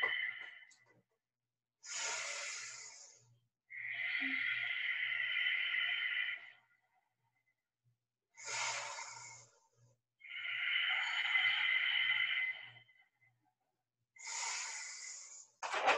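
A person breathing deeply and audibly in a slow, even rhythm. Three in-breaths of about a second each alternate with longer out-breaths of two to three seconds, with short pauses in between.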